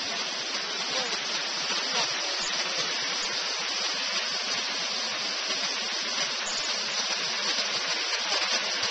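Steady rush of falling water, an even hiss without breaks.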